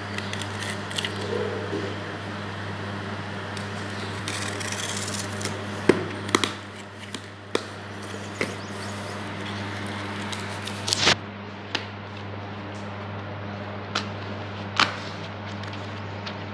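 Cardboard shipping box being opened by hand: tape peeling off, cardboard flaps and paper rustling, with a scatter of sharp cracks and snaps. A steady low hum runs underneath.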